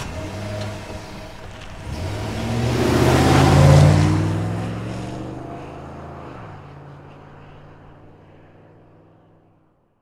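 Pickup truck engine running, revving up to a peak about four seconds in and settling back down, then fading out.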